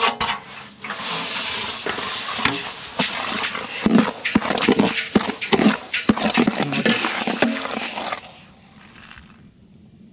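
Split moong dal poured from a wide metal plate into a big pot of hot ghee, a rush of grains about a second in, followed by a long ladle clattering and scraping against the pot as the dal is stirred and roasted. The sound dies down near the end.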